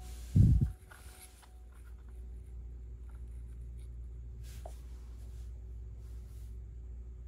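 Hands handling a finished Lego car and its small plastic charging station on a desk mat: a dull thump about half a second in, then soft scraping and a few light plastic clicks.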